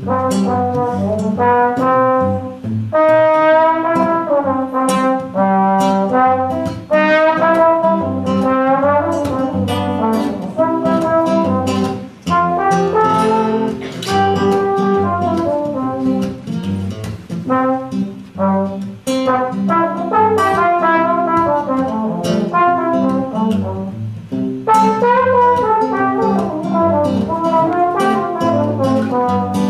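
Trombone and acoustic guitar playing a duet: the trombone carries a melody, often gliding between notes, over the guitar's chords.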